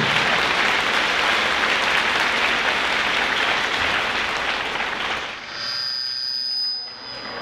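Audience applauding, dying away about five seconds in. It is followed by a brief, steady, high-pitched ringing tone lasting over a second.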